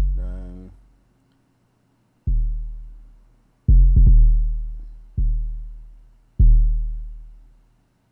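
Software 808 bass from a sampler playing a sparse pattern of deep notes: five hits, each with a sharp attack that dies away over about a second, two of them coming close together a little before the middle.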